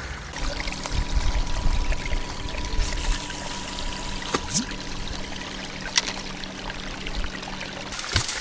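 Water trickling and pouring, with a few light clicks and a faint steady low hum underneath.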